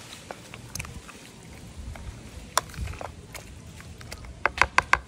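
Plastic spoon stirring a wet soy ceviche in a plastic bowl, with scattered clicks and a quick run of four or five sharp clicks near the end.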